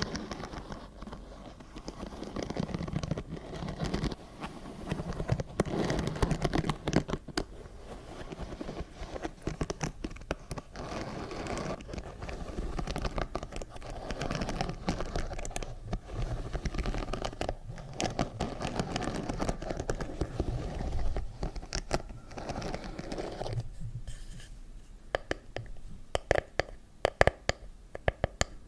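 Close-miked ASMR scratching and crinkling: a dense, continuous run of small crackles and scrapes. Near the end it thins to sparse, separate clicks.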